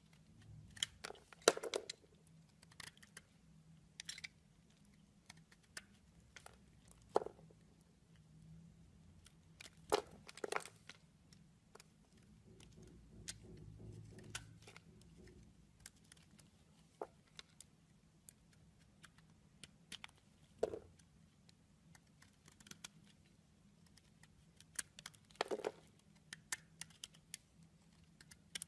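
Utility-knife blade carving a hard bar of laurel oil soap: scattered crisp cracks and scrapes as shavings and chunks break off, with quiet gaps between cuts.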